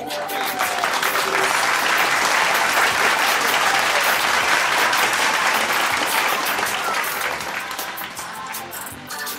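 Theatre audience applauding. The applause swells to full strength within the first second, holds, then thins out near the end, with music playing underneath.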